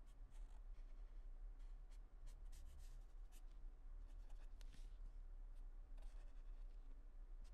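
Faint scratching of a pen or pencil tip on paper: short irregular strokes as letters are hand-drawn.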